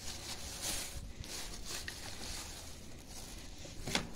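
Cats eating wet cat food: soft, wet chewing and smacking with small clicks.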